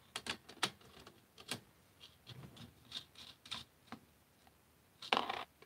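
Light clicks and taps of a nut driver working screws and plastic parts as a 3D-printed Caliburn blaster's back plate is taken off, with a short louder scrape about five seconds in.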